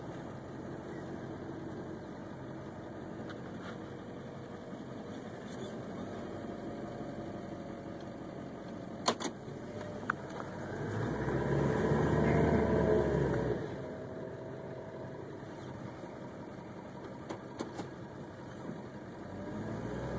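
Truck engine idling steadily, heard from inside the cab. There is a sharp click about nine seconds in, and about halfway through a louder swell of about three seconds whose pitch rises and falls.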